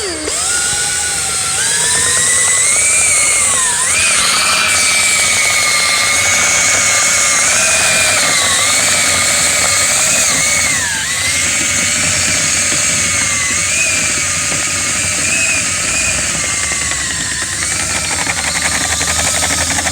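A power tool's electric motor running continuously, its whine wavering up and down in pitch as the load on it changes.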